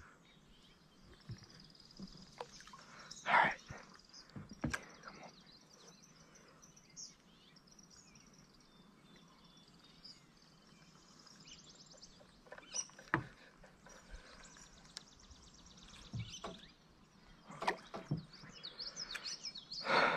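Quiet outdoor pond ambience with birds chirping faintly, broken by a few short knocks and rustles, the loudest about three seconds in and a cluster near the end.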